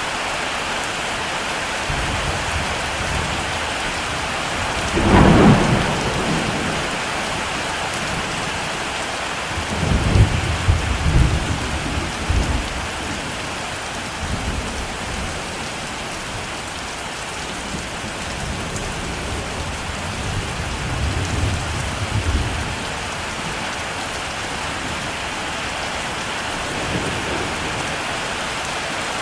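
Heavy rain falling steadily, with thunder: a sharp thunderclap about five seconds in, then low rolling rumbles twice more, around ten seconds in and again past twenty seconds.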